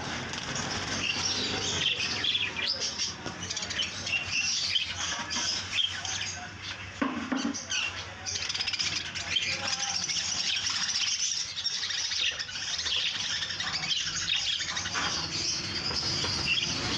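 Budgerigars chirping and chattering continuously, many quick, high chirps overlapping.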